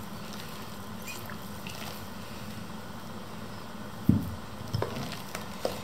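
Homemade foamy slime squelching as it is kneaded by hand in a bowl: a few wet squishes starting about four seconds in, the slime making the noise it is meant to make.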